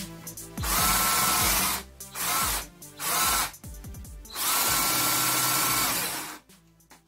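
Cordless drill boring holes into a wooden board, running in four short bursts with a steady motor whine during each; the last burst is the longest, about two seconds.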